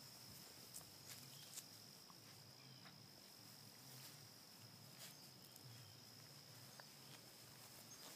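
Near silence: faint outdoor background with a thin, steady high-pitched tone and a few soft scattered clicks.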